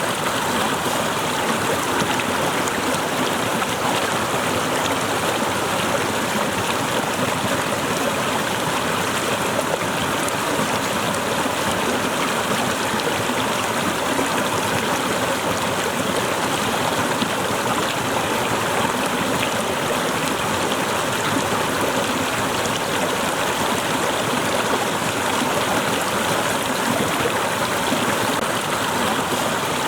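Waterfall water pouring and splashing steadily, a continuous even rush with no breaks.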